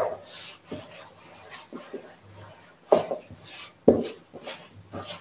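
A wooden spoon stirring and scraping stiff pasta dough of flour and egg around a stainless steel mixing bowl, in irregular strokes, with a few sharper knocks of the spoon against the bowl.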